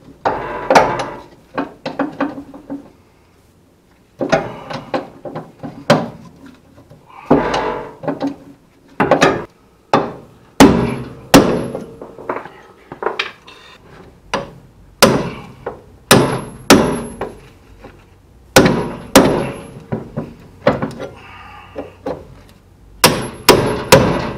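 Hammer blows on the steel front-suspension parts of a 1966 Ford Mustang, knocking the old joints loose during teardown. The strikes come unevenly, with a brief pause a few seconds in, and some ring with a high metallic note. Near the end they quicken into a fast run of several blows.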